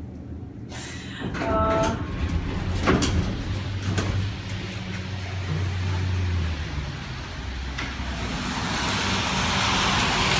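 A low hum with a few knocks, then the hiss of traffic on a rain-wet street building over the last couple of seconds as the building's door opens to the outside.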